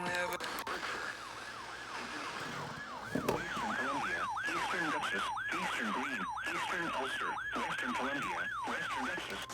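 Emergency vehicle siren in a fast yelp, its pitch sweeping up and down about twice a second, growing from faint to strong about three seconds in, with a sharp click around the same point.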